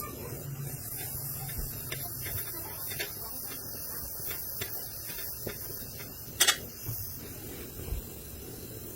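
TIG welding arc: a steady hiss with a low buzz, with a few light ticks and one sharp click about six and a half seconds in.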